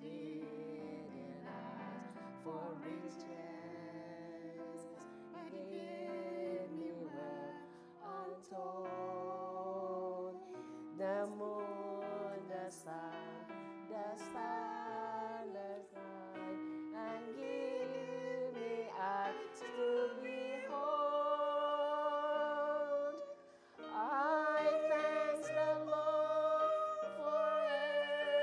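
A woman singing a hymn in long held notes over instrumental accompaniment.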